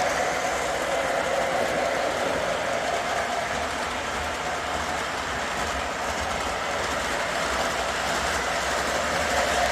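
Pair of Weaver U25B O gauge model diesel locomotives running on the layout track: a steady whir of motors and gearing with the wheels rolling over the rails. They are on a test lap after a traction tire replacement and running smoothly.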